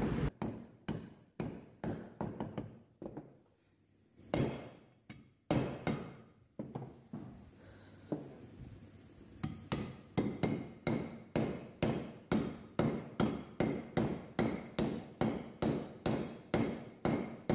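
Hammer tapping new bearings into a Suzuki Gixxer motorcycle engine's crankcase, metal on metal. The blows are scattered at first, then settle into a steady run of about two taps a second from about ten seconds in.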